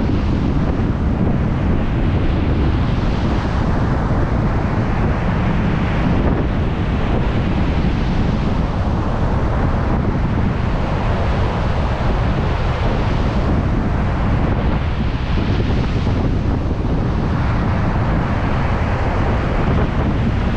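Storm surf breaking and washing on a beach, with strong wind buffeting the microphone as a heavy low rumble. The wash of the waves swells and fades every few seconds over the steady wind.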